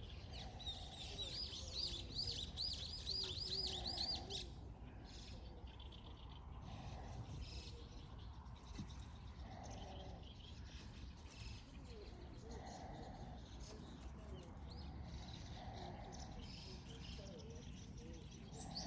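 Outdoor birdsong: a bird sings a fast run of repeated looping high notes for the first four seconds or so. Scattered chirps follow, along with a lower note that repeats about every three seconds, over a low steady background hum of wind and ambient noise.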